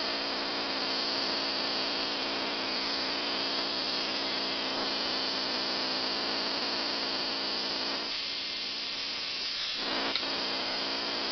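Small homemade spark-gap Tesla coil running on a makeshift spark gap: a steady electrical buzz.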